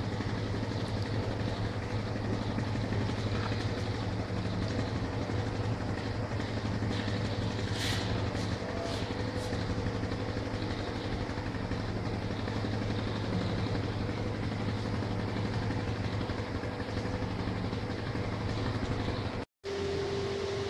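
Electric fans running: a steady mechanical hum and whir. Near the end it drops out for a moment and a different steady hum with one clear, higher tone follows.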